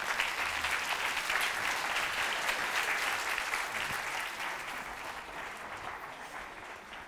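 Audience applauding, a dense patter of many hands clapping that slowly fades away toward the end.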